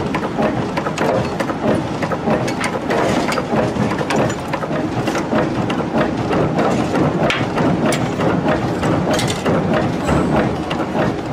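Dense, irregular metallic clatter and knocking of forging-shop machinery and steel tooling, going on without a break and without a clear beat.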